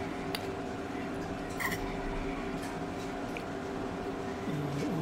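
A few light clinks on a glass bowl as caramel-coated grapes and apple pieces are picked out by hand, with soft sticky handling sounds, over a steady low hum. A short hum of voice near the end.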